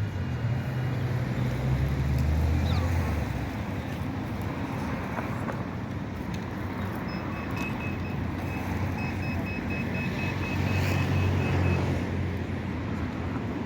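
Road traffic passing: motor vehicle engines hum over a steady wash of traffic noise, one fading away in the first few seconds and another passing near the end. A thin, high, broken beeping runs through the second half.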